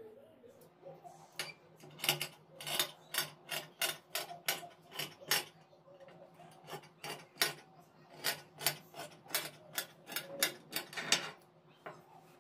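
Tailoring scissors cutting through cotton fabric in a quick run of snips, about two to three a second. The blades click shut each time, and the snipping stops about a second before the end.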